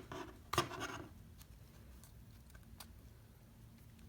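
A plastic guitar pick prying and scraping at the edge of an iPhone SE display: a click at the start, a short scrape about half a second in, then a few faint ticks.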